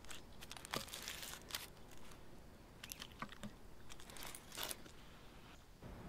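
Irregular, fairly faint crackles and crinkles of a crisp pizza crust breaking and its baking paper rustling as the pizza is handled and a slice is pulled free.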